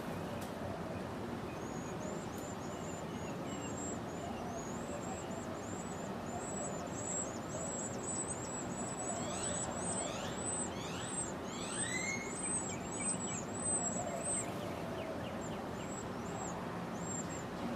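Small birds chirping: a long run of short, high-pitched chirps, about two a second, with a few lower falling notes in the middle, over a steady low background noise. The chirping stops about three-quarters of the way through.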